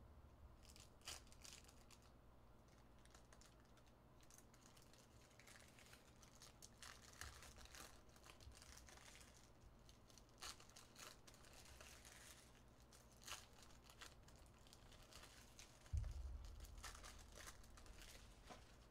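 Faint rustling and crinkling of foil trading-card pack wrappers and cards handled by hand, with soft scattered clicks as the cards are flipped through, over a faint low hum. A single dull thump about three seconds before the end.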